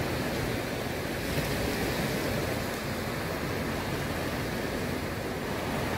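Small sea waves washing against a rocky seawall shore, a steady rushing noise with no distinct splashes.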